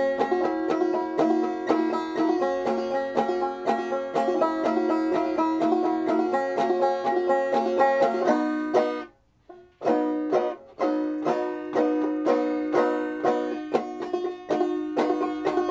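Five-string banjo picked clawhammer style in open G tuning tuned down a half step, playing a steady run of plucked notes. The playing breaks off for under a second about nine seconds in, then picks up again.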